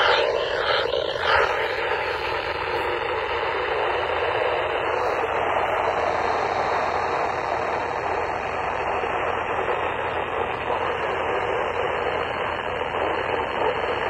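Midland NOAA weather alert radio's speaker giving a steady static hiss while tuned to the weather broadcast, with a few faint tones dying away in the first few seconds.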